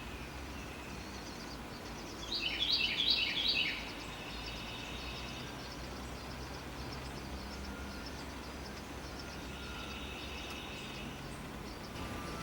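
A bird calling a quick run of about four repeated chirps a little over two seconds in, over a faint steady outdoor background.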